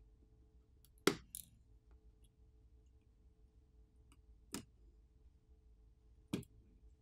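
Three sharp, small clicks, the first with a quick second click after it, of a plastic pry tool working at the cable connectors on an opened smartphone's main board, over a faint steady hum.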